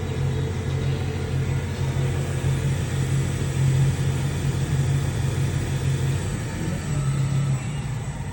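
Spindle of an Omniturn GT-75 CNC gang lathe running steadily at its maximum speed of about 2,700 RPM: a constant low hum with a thin high whine above it.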